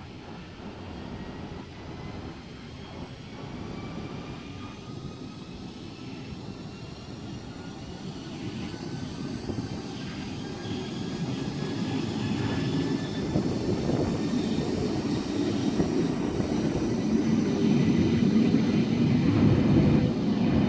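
Sydney S-set double-deck electric train (the heritage set S54) pulling into the platform and sliding past: wheel and running noise that grows steadily louder as the corrugated stainless carriages pass close, with a faint motor whine gliding upward in pitch.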